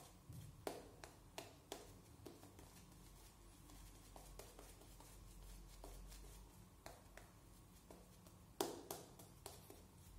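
Edwin Jagger double-edge safety razor with a Derby Extra blade scraping through lathered stubble: short, faint rasping strokes, a cluster in the first two seconds and another, louder one near the end.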